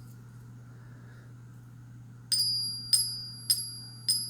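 A 40% silver coin being tapped and ringing: four sharp pings about half a second apart, starting a little over two seconds in, each leaving a high, clear, fading ring. A low steady hum underneath.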